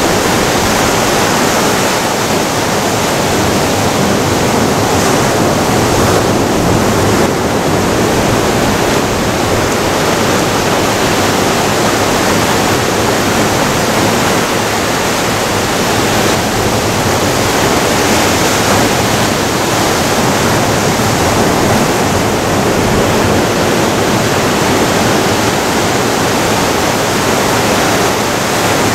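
Ocean surf breaking and washing over rocks and boulders, a loud, steady rush of water.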